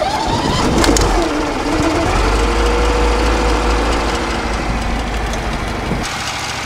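The riding mower's Briggs & Stratton engine, just started. It runs up, its pitch rising and falling in the first couple of seconds, then runs steadily with a deep rumble that eases a little near the end. It is being warmed up so the engine oil flows easily for draining.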